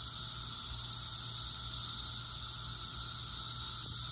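Loud daytime chorus of many cicadas singing together, a steady, unbroken high whine.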